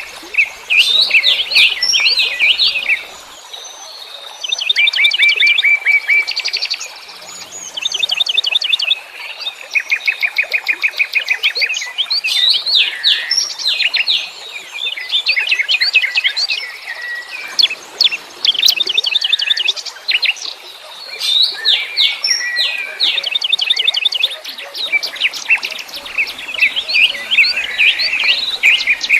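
Wild songbirds chirping and trilling, with runs of fast repeated notes a second or two long and short rising and falling whistles that overlap almost without a break.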